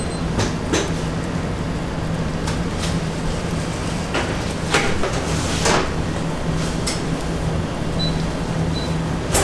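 Steady low machine hum with scattered clicks and clatter and a few short hisses.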